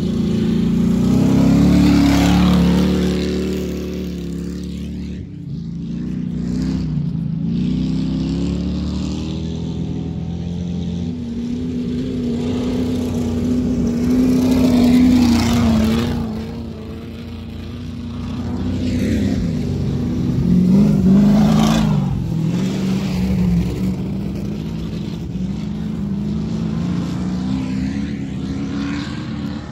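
Old jalopy race cars' engines at racing speed, passing one after another, their pitch rising and falling as they accelerate and back off. The loudest passes come about 2, 15 and 21 seconds in.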